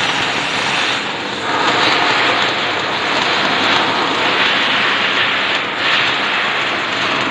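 Welding arc sizzling steadily with a dense crackle, briefly weakening about a second in and again after five and a half seconds.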